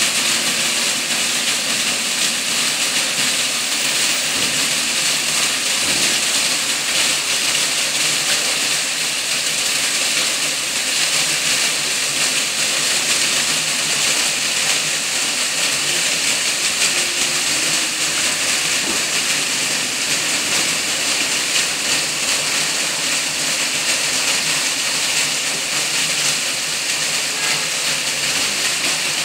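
Water from a cascade wall and a row of foam-jet fountain nozzles splashing continuously: a steady, even rushing hiss.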